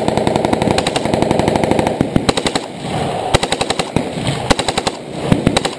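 AK-74 Krinkov carbine firing on full auto: one long burst of about two seconds, then several shorter bursts of rapid shots.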